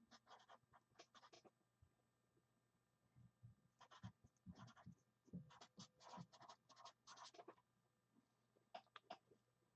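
Near silence, with faint scratching and rustling in short spells: one at the start, a longer one from about four to seven and a half seconds in, and a brief one near the end.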